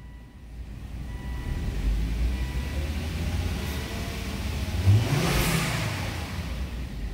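2005 Volvo XC90's 2.5-litre turbocharged five-cylinder engine being revved in park. The revs climb steadily to nearly 4,000 rpm, peak about five seconds in, then ease back down.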